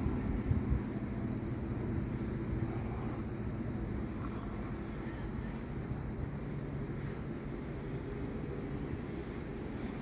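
A cricket chirping in a steady, fast, even pulse, over a steady low rumble.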